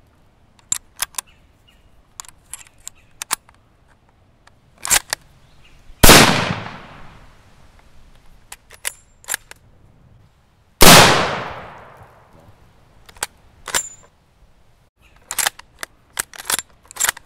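Mauser Kar98k bolt-action rifle (7.92×57mm): two loud shots about five seconds apart, each with a long echo dying away over about a second and a half. Clusters of short metallic clicks and clacks come before, between and after the shots as the bolt is worked.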